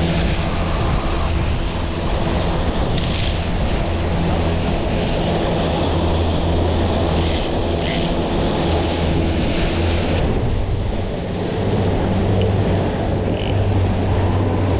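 Boat engine running steadily at trolling speed, a low even hum, with water rushing along the hull and wind buffeting the microphone.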